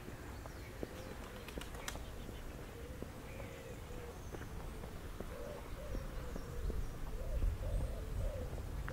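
A pigeon cooing: a run of low, repeated coos, each rising and falling, growing clearer about halfway through. A low rumble runs underneath and swells near the end, and a few sharp clicks come early on.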